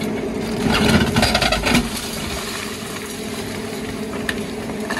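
Menzi Muck M545x walking excavator running steadily as its hydraulic demolition grapple crushes reinforced concrete. About a second in there is a loud burst of crunching and cracking concrete lasting about a second, and a single sharp knock comes near the end.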